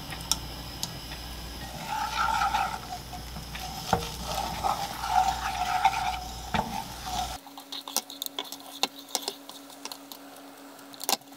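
Wooden chopsticks stirring beaten egg in an oiled nonstick frying pan over low heat, the egg sizzling as it sets while the chopsticks scrape and tap against the pan. The sound is loudest in the middle, then drops away abruptly about two-thirds of the way through, leaving light scattered taps.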